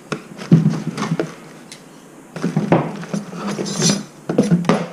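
Rubber and braided plastic hoses and small metal parts being handled and lifted out of a cardboard box: a string of irregular knocks, rustles and light clinks.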